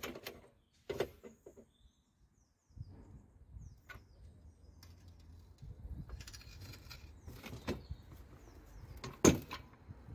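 A few sharp metallic clicks and knocks from work at a car's front wheel as the wheel nuts go back on. The loudest knock comes near the end, and faint bird chirps sound early on.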